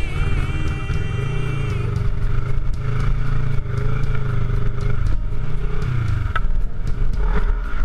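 Kawasaki Versys 650's parallel-twin engine running under way, its pitch rising and falling with the throttle, with a few sharp knocks near the end.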